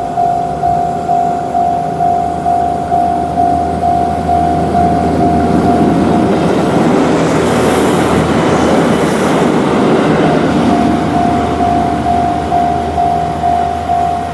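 Japanese level-crossing warning bell sounding its repeated 'kan-kan' at about two strokes a second, drowned out for about five seconds in the middle by the rumble of a train passing over the crossing; the bell is heard again near the end.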